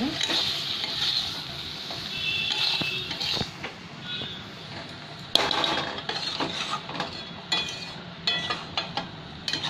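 A flat metal spatula stirs and scrapes a thick prawn and pumpkin curry around a metal kadai over a gas flame, and the food sizzles. From about halfway on there are frequent sharp clinks and scrapes of the spatula against the pan. The curry is in its last stage of frying, nearly dry, with the oil separated.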